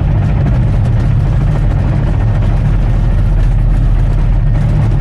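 Bulldozer's diesel engine running steadily, a low even drone, while the dozer back-blades a rough patch of graded ground.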